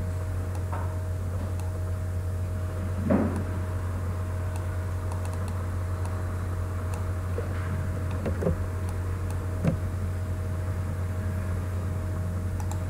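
Steady low electrical hum with a fainter higher tone from the recording setup, broken by a few soft knocks or clicks about three seconds in and again near the eight- and ten-second marks.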